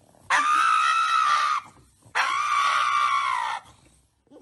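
Pug screaming during a nail trim: two long, high cries of over a second each, slightly arched in pitch, with a short gap between them.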